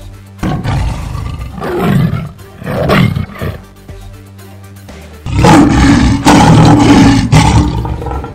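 Big-cat roar sound effects from a lion and tiger: three short roars in the first few seconds, then one long, loud roar from about five seconds in, over quiet background music.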